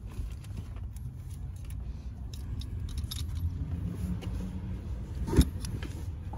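Light metallic clinks of an adjustable fuel-pump spanner wrench being handled and set onto the fuel pump's locking ring, with one sharper knock near the end, over a low steady rumble.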